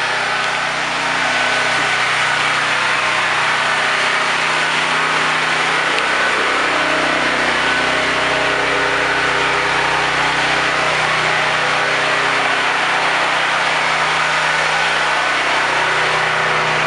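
Machinery running steadily: a constant motor hum under an even rushing noise, getting a little louder about a second in.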